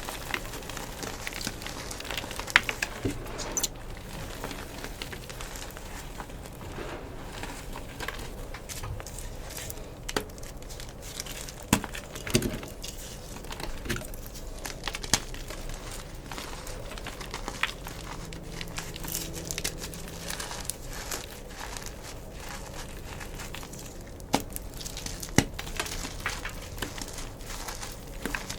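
Gym chalk being crushed and crumbled, a dense run of small irregular crunches and crackles with an occasional sharper snap.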